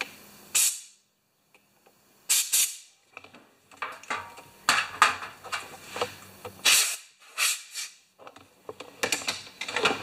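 Compressed-air blow gun giving a series of short hissing bursts of air, about a second or two apart, blowing off a carburetor float after cleaning.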